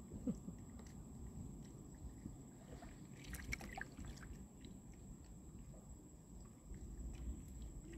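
Faint water sloshing and trickling over a low rumble, with a few light knocks about three seconds in.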